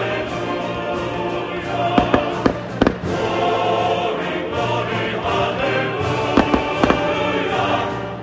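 Professional fireworks going off: a quick run of sharp bangs about two to three seconds in and a few more around six and a half to seven seconds, over steady music with singing.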